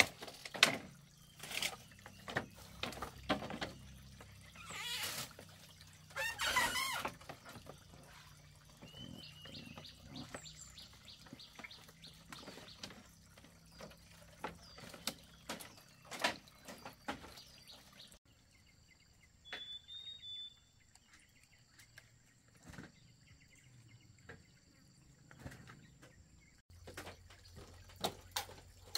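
Water splashing and pouring amid scattered clicks and knocks of handling, with a bird chirping a few times.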